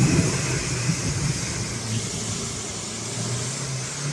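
Nissan Patrol Y61's ZD30 turbo-diesel engine running steadily as the lifted 4x4 drives through an icy mud hole, a low drone that eases a little mid-way and picks up again near the end.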